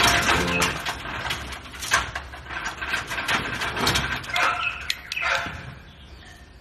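A metal gate rattling and clanking as a dog jumps up and paws at it. Near the end come a few short chirps that fall in pitch.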